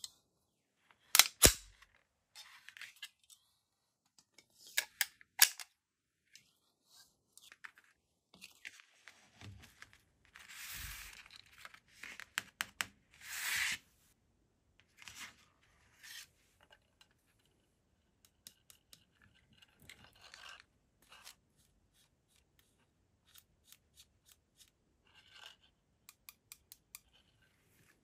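Springfield Echelon pistol being handled: sharp metallic clicks and snaps of its slide and controls about a second in and again around five seconds, two longer rasping slides of the slide near the middle, then scattered light clicks and taps as it is turned over and set down.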